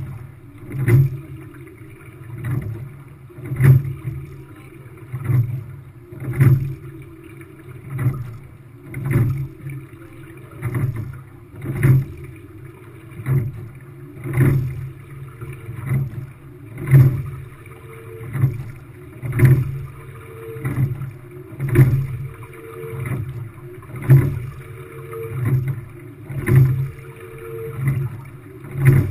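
Rowing shell under way at a steady stroke: two sharp knocks per stroke, about one stroke every two and a half seconds, as the sculls turn in their oarlocks at the catch and the finish, with a low rumble through the hull and water rushing past.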